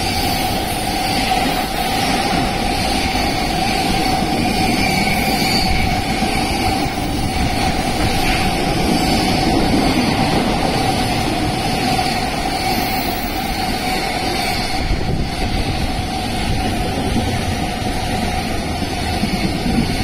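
A freight train's container wagons rolling past at speed: a loud, steady rush of wheels on rail with a steady ringing tone running through it.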